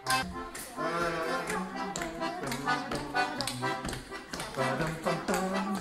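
Piano accordion playing a lively tune, with a voice singing along and regular tapping beats.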